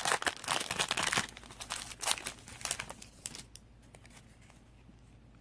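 Foil Yu-Gi-Oh booster pack wrapper crinkling and tearing open by hand, a dense irregular crackle that stops about three seconds in.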